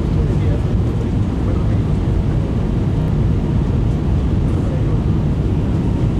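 Airliner cabin noise heard from a window seat: a steady, loud low noise of the jet engines and the air rushing past the fuselage.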